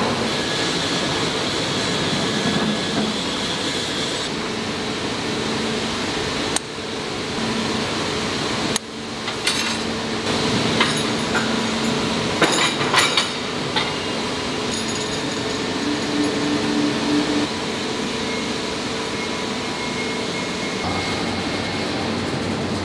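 Heavy-industry plant noise: a steady machinery hum with metallic clanks and clinks, most of them bunched in the middle, and abrupt changes where shots are cut together.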